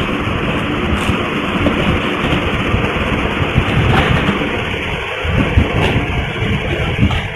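A courier package being handled and torn open: dense rustling and rumbling of packaging, with a few sharp crackles or snaps.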